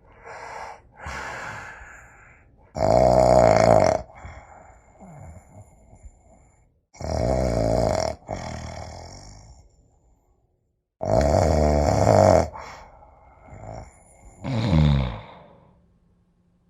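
A person snoring: three long, loud snores about four seconds apart, with softer breaths between them, and a shorter snore falling in pitch near the end.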